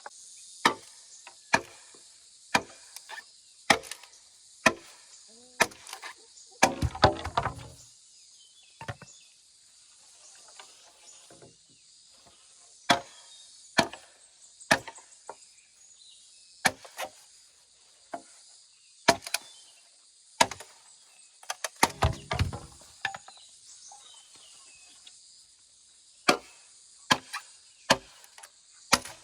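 A hand tool chopping with sharp single strikes, roughly one a second with short pauses, and twice a longer, heavier burst of several quick blows. A steady high insect drone runs behind.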